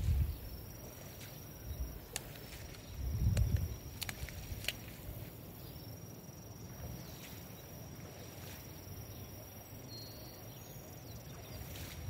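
Outdoor nature ambience: a steady, thin, high-pitched insect drone, with a few sharp clicks and a brief low rumble of wind on the microphone about three seconds in.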